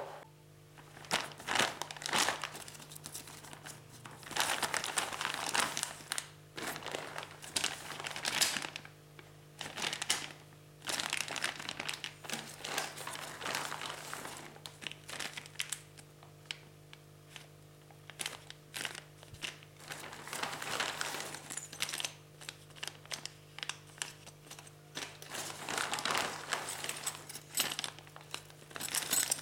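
Packaging being handled during an unboxing: crinkling and rustling in irregular bursts, on and off.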